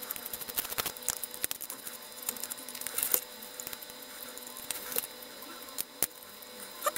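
Small screwdriver and fingers clicking and scraping on the chassis of a model steam locomotive as it is taken apart: irregular light clicks with a few sharper ones.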